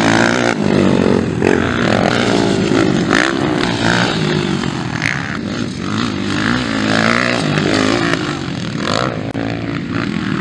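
Motocross bike engines revving hard on the track, their pitch climbing and dropping over and over with throttle and gear changes.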